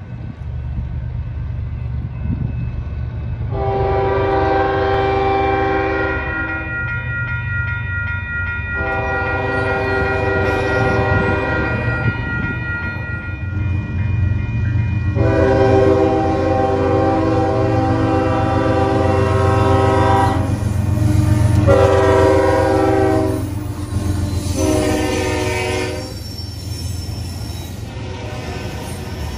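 Union Pacific diesel freight locomotive sounding its multi-note air horn in five blasts, the crossing warning as it nears a road grade crossing: three long blasts, then two shorter ones close together. A steady low rumble from the locomotive runs underneath, and the train passes close by near the end.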